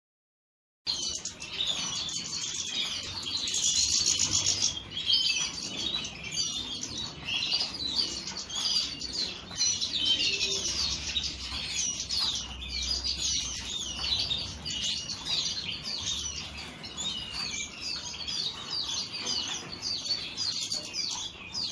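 Chorus of many European goldfinches twittering and singing together in an aviary: dense, overlapping quick chirps and trills that start abruptly about a second in.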